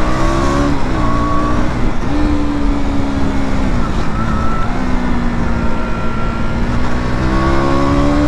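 Motorcycle engine running under way, its pitch climbing slowly and dropping back several times as the throttle is opened and eased off, over steady wind noise.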